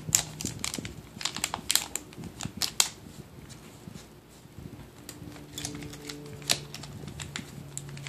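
Sharp clicks and taps of small hard objects being handled by hand, thick in the first three seconds and sparser after. A faint steady low hum comes in about five seconds in.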